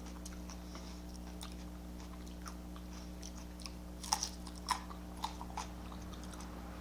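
A person chewing food close to the microphone: a few short, faint wet mouth clicks about four to six seconds in. A low, steady electrical hum runs underneath.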